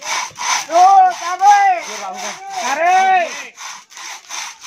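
A hand saw cutting through a coconut palm trunk in quick, even back-and-forth strokes. Several strokes carry a whining tone that rises and falls.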